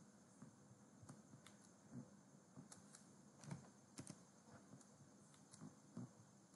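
Faint computer keyboard keystrokes, irregular and widely spaced, over a low room hiss.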